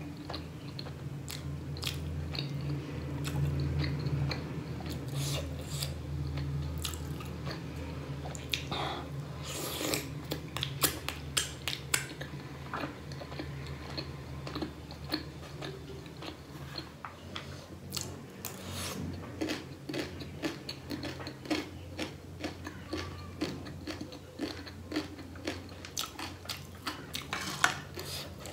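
A person chewing a mouthful of steamed pork momo dumpling, with short, wet, irregular smacking clicks of the mouth.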